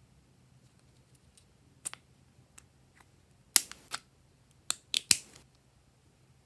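White plastic snap-on lid being pried off a small square plastic jelly cup: a handful of sharp plastic clicks and cracks, the loudest about three and a half seconds in and a quick cluster around five seconds in.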